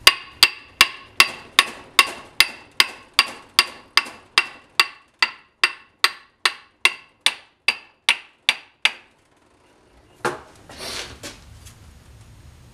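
A hammer tapping the input flange onto the pinion splines of a BMW E46 rear differential, about two dozen even taps at roughly two and a half a second, each with a short metallic ring. The taps stop, and there is a brief scuffing sound of handling.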